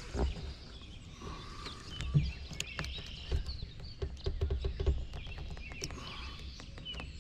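Birds chirping and calling, over low wind rumble on the microphone, with scattered small clicks and taps.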